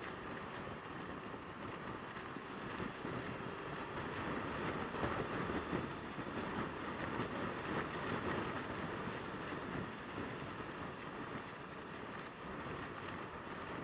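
Wind rushing over the microphone mixed with the engine and tyre noise of a Yamaha YZF600R Thundercat sport bike cruising at highway speed, growing louder for a few seconds in the middle.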